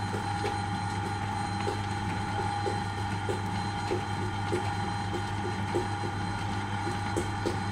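Spinning potter's wheel running with a steady hum, a light click repeating about two or three times a second as the potter's wet hands shape the rim of a clay jar.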